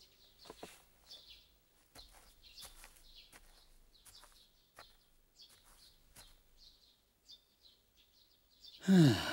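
Small birds chirping here and there, short high calls at a low level. Just before the end a much louder sound with a pitch sliding up and down begins.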